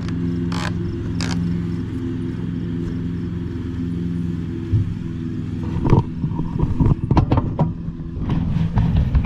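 Lawn tractor engine running at a steady idle, with sharp knocks and clatter in the second half.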